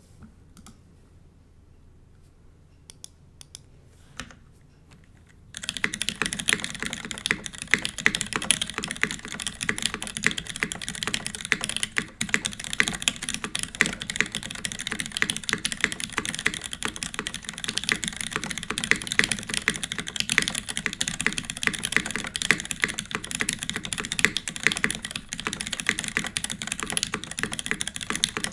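Typing on a UTC 360c mechanical keyboard with lubed, filmed Cherry MX Black linear switches in a top-mounted aluminium plate, under GMK keycaps. A few scattered keystrokes at first, then fast continuous typing from about five seconds in.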